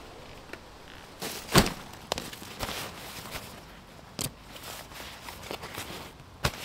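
A heavy Savotta backpack set down on dry leaf litter with a thud about one and a half seconds in, followed by rustling fabric and several sharp clicks as its straps are worked to free the rolled tent strapped on top.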